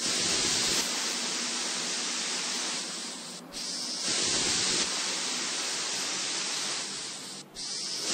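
Steady hiss of room noise with no music or speech. It cuts out briefly twice, at what look like shot changes.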